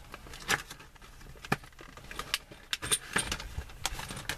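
Small steel screws and washers from a steering wheel puller kit clinking and tapping against each other and against metal as they are handled, in a dozen or so short separate clicks that come closer together in the second half.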